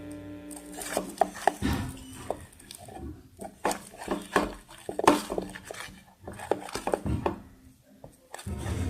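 A stirrer clicking and scraping irregularly against a container as a mixture of glue and liquid soap is stirred for slime.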